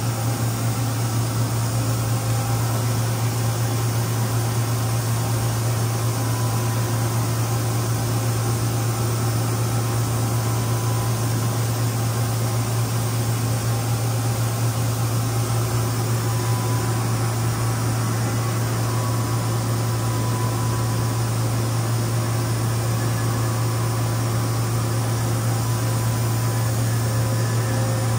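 Steady low electrical hum under an even fan-like hiss: the background noise of machinery and ventilation running in a machine shop. A faint high tone joins in the second half.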